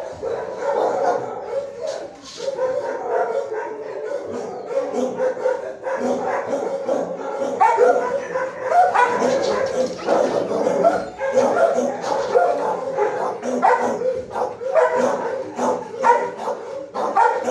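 Shelter dogs barking and yipping without pause in a tiled kennel block, with a steady hum underneath.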